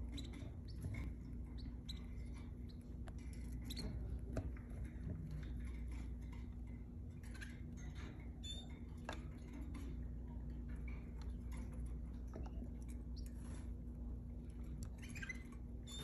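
Faint, scattered high squeaky peeps and small ticks from canaries in a breeding cage with newly hatched chicks, over a steady low hum.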